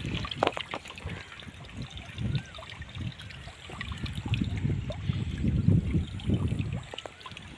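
Muddy irrigation water trickling and splashing unevenly, growing louder about four seconds in.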